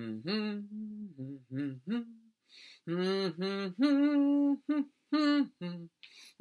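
A man humming the tune of a days-of-the-week chant in short held notes, phrase by phrase, leaving gaps where the children would say the day names.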